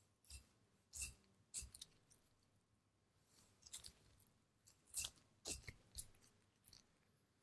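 A knife slicing raw Japanese Black wagyu beef as a gloved hand peels the meat apart: a string of short, wet crackling cuts, a few in the first two seconds and more from about three and a half seconds in.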